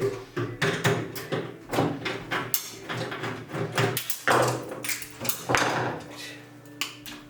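Irregular knocks, clicks and short scrapes of a microwave oven being taken apart by hand, its metal casing and parts handled as screws are undone, over a faint steady hum.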